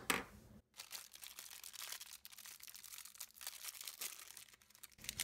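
Plastic packaging crinkling faintly as small camera mounts are handled, a dense run of quick crackles that starts after a short dead gap under a second in.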